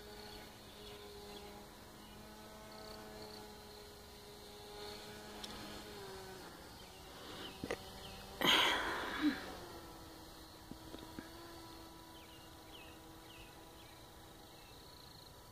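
The motor and propeller of a distant RC paracopter buzzing steadily in flight, its pitch shifting lower about six seconds in. About eight and a half seconds in there is a brief loud rush of noise.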